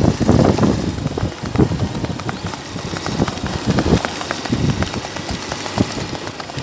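Hoofbeats of a horse moving at a quick gait on a dirt track: a rapid, uneven run of short thuds over a steady low rumble.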